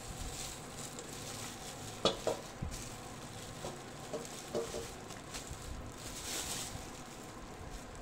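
Crinkling and rustling of clear plastic wrap being handled and pulled off stainless steel dog bowls, with a few light clicks and knocks, the sharpest about two seconds in.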